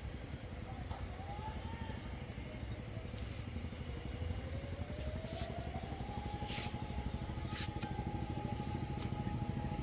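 Civil-defence warning siren sounding during a blackout mock drill, a single steady tone that rises in pitch about four seconds in and then holds at the higher pitch. It sounds over a steady low engine-like rumble.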